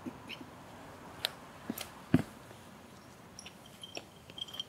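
Scattered light clicks and knocks as a person walks up and lifts a mosaic piece off the paving. The loudest is a sharp knock about two seconds in, and a run of small clicks and scrapes comes near the end as the piece is picked up.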